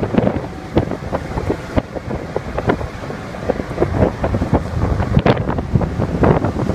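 Strong wind buffeting the microphone in irregular gusts, over the rush of a rough winter sea.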